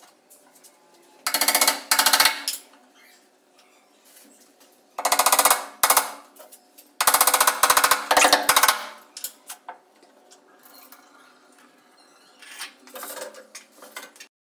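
Hammer driving nails into a wooden face frame on a wall cabinet: three bursts of rapid blows a second or two long, then a few lighter taps near the end.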